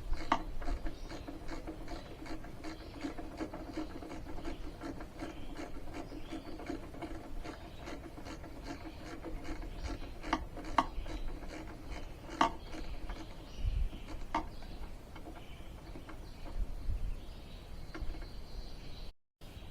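A fastener being tightened down by hand with a tool: rapid rasping, ratchet-like clicks, with a few sharper clicks in the middle, over a steady hum.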